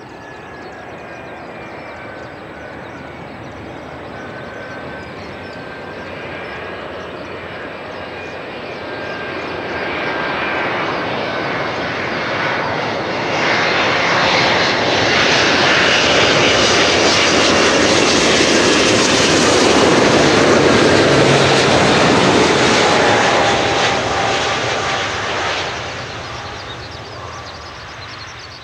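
Alitalia Boeing 777-200ER airliner on final approach, its twin jet engines making a whine over a rumble that grows louder as it comes in. It is loudest as it passes close overhead, the whine sliding slightly lower, then it fades quickly near the end as it drops toward the runway.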